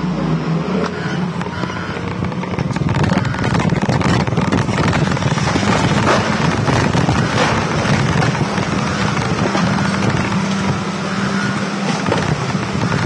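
Engine of a heavy loader running steadily with a constant low hum, heard from on the machine itself, with a clatter of knocks and rattles over it that grows louder about three seconds in.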